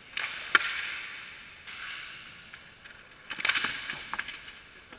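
Hockey skates scraping and hissing across the ice twice, with sharp clacks of sticks and puck: one loud crack about half a second in and a quick flurry of clacks a little past the middle.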